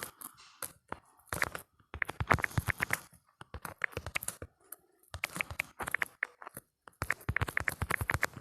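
Typing clicks from a smartphone's on-screen keyboard, coming in quick runs of several taps a second broken by short pauses.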